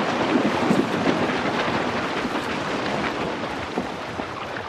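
A herd of African buffalo splashing through a waterhole and scrambling out: a steady rush of churning water and trampling, easing slightly near the end.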